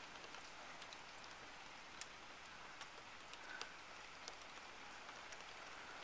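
Faint, steady rain hiss with scattered drops ticking during a thunderstorm.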